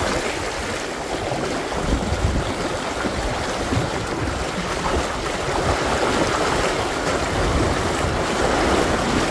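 Fast-flowing river water rushing steadily, with irregular low rumbles underneath.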